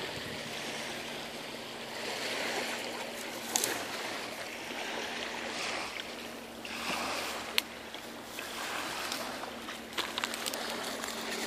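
Dry grass, stems and brush rustling and crackling as someone walks down through them, swelling and fading with each stride, with a few sharp twig snaps. A faint steady hum sits underneath.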